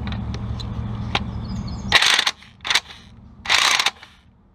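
Impact wrench hammering in three short bursts, starting about two seconds in, as it breaks loose the 14 mm coolant drain plug on a GM 3.1L V6 engine block.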